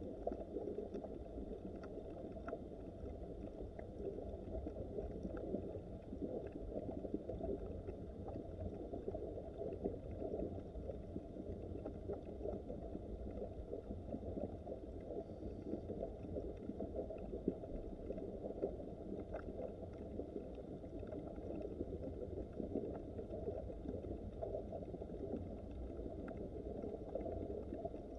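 A small mountain stream's water running steadily, a dull, muffled rush with a few faint ticks over it.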